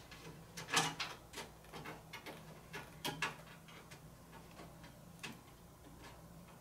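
Scattered light clicks and knocks of a SATA cable and plastic parts being handled and routed through a PC case, a few seconds apart.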